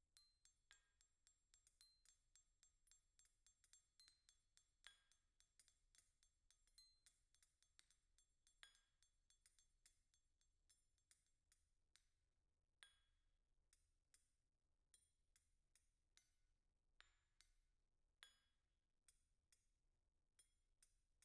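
Metal spoons struck with mallets, soft clinking notes with a short bright ring. The strikes come quickly and evenly at first, then thin out to scattered single strikes about halfway through.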